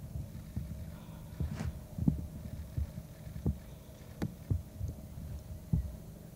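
Irregular low thumps and knocks, about a dozen, over a steady faint electrical hum: camera handling noise as the camera is swung to follow a flying owl.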